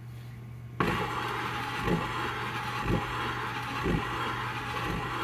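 Round part, held in a UR10e robot arm's three-jaw gripper, rubbed in circles against a stick-on sanding disc to knock the burrs off its bottom face: a steady abrasive rasp that starts suddenly about a second in, with a low pulse about once a second as the part circles, and stops near the end.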